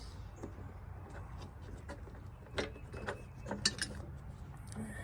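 Small plastic clicks and rattles of a headlight bulb and its plastic retaining pieces being handled, with a quick run of sharp clicks in the second half, over a low steady hum.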